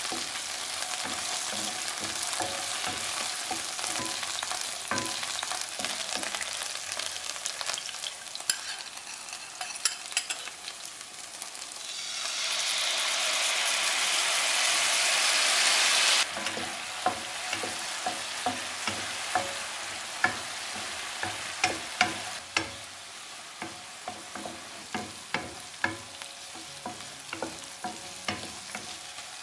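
Chicken pieces frying in oil in a nonstick pan, a steady sizzle with light clicks of a wooden spatula turning them. About twelve seconds in, the sizzle swells louder and brighter as the soy-based teriyaki sauce hits the hot pan, then stops abruptly. After that a softer sizzle, with the wooden spatula knocking against the pan again and again as the chicken is stirred through the sauce.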